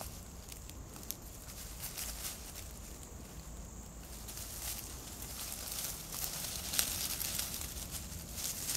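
Dry leaf litter rustling and crackling in irregular snaps as a nine-banded armadillo roots through it while feeding. The crackles come more often in the second half.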